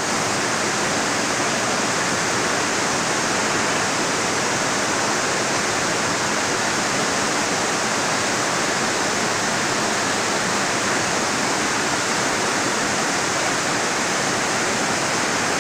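Fast, rocky mountain river running in white-water rapids over boulders: a steady, unbroken rush of water.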